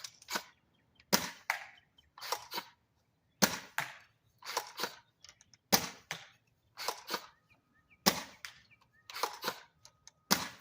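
Modified Worker Harrier foam dart blaster being fired over and over: a sharp crack, then about a second later a quick double clack, the pattern repeating about every two and a quarter seconds.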